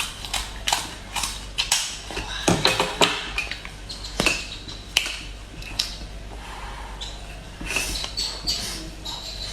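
King crab legs being cracked open and eaten: the shell snaps in a string of sharp cracks, loudest about two to five seconds in, with short high squeaks in between and near the end.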